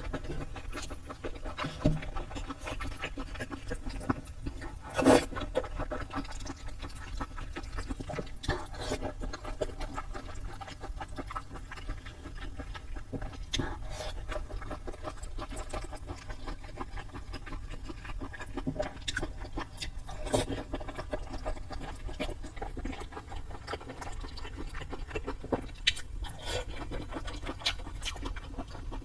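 A person eating close to the microphone: wet chewing and mouth smacks, with scattered short clicks over a steady low hum.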